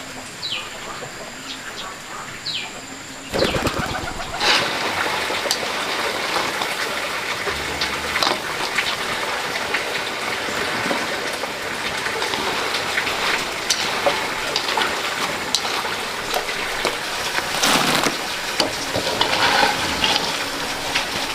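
A few short, falling bird chirps over a thin high insect tone, then about three seconds in a sudden, steady hiss of heavy rain pouring down, with scattered patters and drips.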